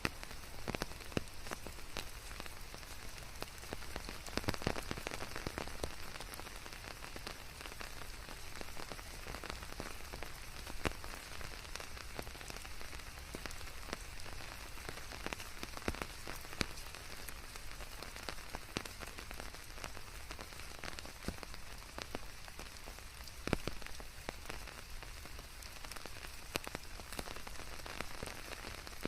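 Steady rain falling on surfaces, a continuous hiss dotted with many individual drops and splashes, some louder than others.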